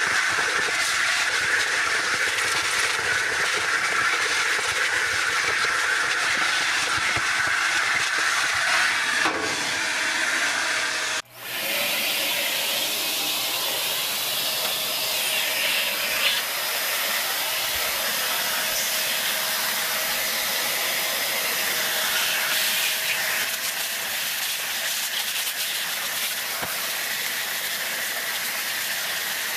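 Shark upright vacuum cleaner running steadily, its crevice tool sucking lint out of the cavity below a dryer's lint-trap opening. The sound drops out for an instant about eleven seconds in, then the steady vacuum noise resumes with a slightly different tone.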